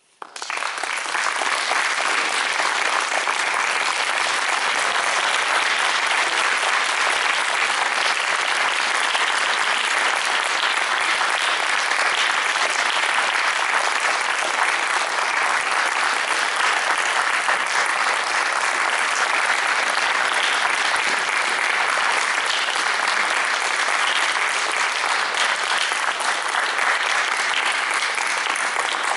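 Audience applauding at the end of a solo cello performance: the clapping breaks out suddenly and keeps up, loud and steady.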